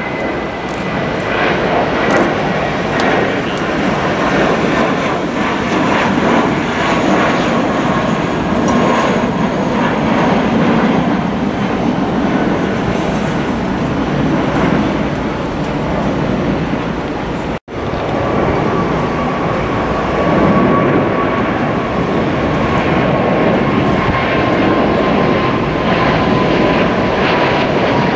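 Jet airliners climbing out after takeoff with engines at high power: first an Airbus A320, a steady dense jet noise with a faint whine slowly falling in pitch. It cuts out for an instant about two-thirds through, then a Boeing 777-300ER's engines follow, with a lower whine sliding slowly down as it passes.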